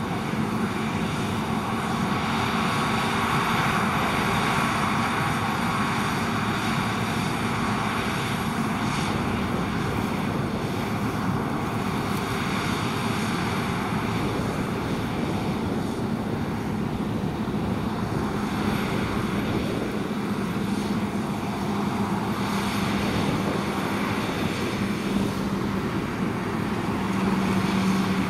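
Claas Lexion 670 Terra Trac combine harvester at work harvesting oats: a steady drone of engine and threshing machinery, with a low hum that grows stronger in the second half.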